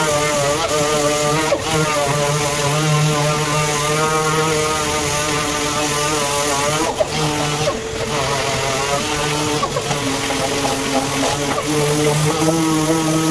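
Random orbital sander with a dust-extraction hose sanding a car running board: a steady motor whine that wavers slightly in pitch as the pad is worked along the panel.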